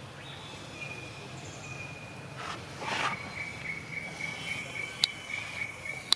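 Insect trilling steadily at one high pitch, with a brief rustle about three seconds in and two sharp clicks near the end.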